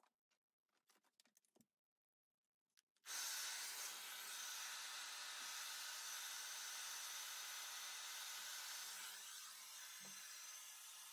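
Handheld hair dryer switched on about three seconds in, then blowing with a steady rushing hiss and a faint motor hum, aimed at the lace-wig glue along the hairline; before it, only a few faint clicks.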